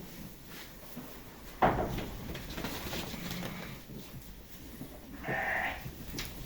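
Sheep bleating, with a sudden loud sound about a second and a half in and a clear bleat near the end.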